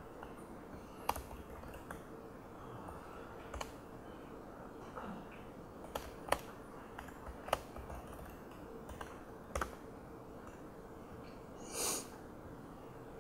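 Sparse keystrokes on a laptop keyboard, a few separate clicks a second or more apart, as code is typed, over a faint steady hum. A short breathy noise comes near the end.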